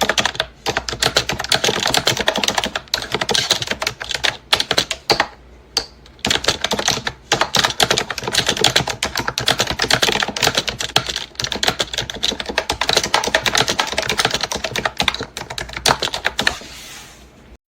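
Fast typing on a Kootop retro typewriter-style wireless keyboard with round keys: a dense, continuous run of key clicks with a couple of brief pauses, fading out near the end.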